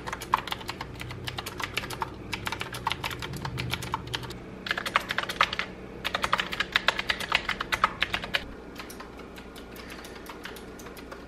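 Typing on a Qwerkywriter, a typewriter-style mechanical keyboard: runs of quick key clicks broken by short pauses, thinning out to scattered keystrokes over the last few seconds.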